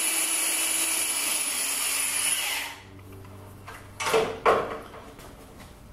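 Corded electric drill running steadily with a high whine as it bores a hole into the lathe's metal headstock for a locking screw. It stops about three seconds in, and a couple of knocks from handling follow.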